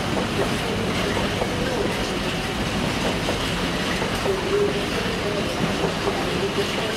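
A train running past on the track: continuous wheel-on-rail noise with many small knocks, and a short whine about four to five seconds in.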